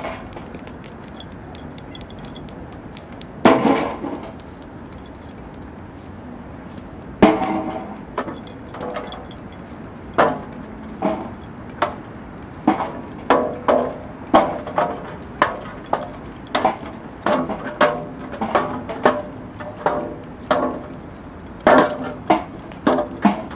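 Improvised percussion played by striking found objects with sticks: separate sharp hits, each ringing briefly. A few scattered strikes come first, then from about ten seconds in they settle into an irregular pulse of roughly one or two hits a second.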